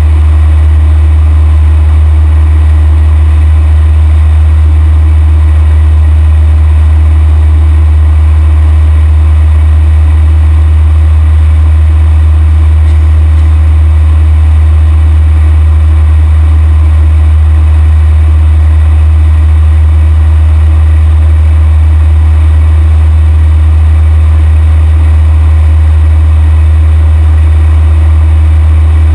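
Cessna 172's piston engine and propeller running steadily in cruise flight, a loud, unchanging low drone heard from inside the cabin.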